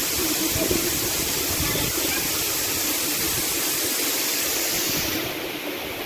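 Steady rush of a waterfall pouring into a pool: an even hiss of falling water that turns a little duller about five seconds in.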